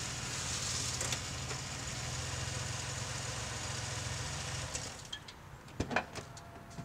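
A car engine idling steadily under a hiss. It cuts off abruptly about two-thirds of the way through, leaving quieter surroundings with a few short clicks.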